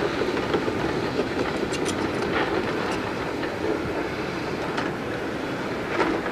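Cat 308E compact excavator travelling on its crawler tracks, the tracks clanking and rattling over the running engine, with a brief high squeak about two seconds in.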